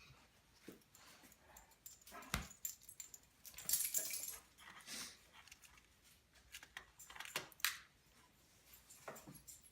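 A German shepherd moving about close by: faint breathy snuffling with scattered light metal clinks, loudest in two short spells in the middle.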